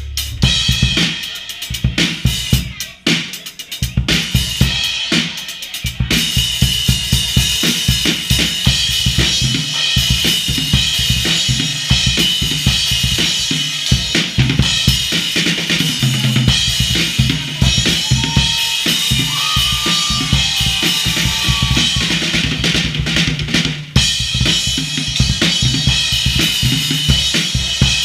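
Drum kit played solo: kick drum, snare and cymbals. The first few seconds are sparse, separate strokes with gaps, and then it becomes fast, continuous playing, with a brief break about 24 seconds in.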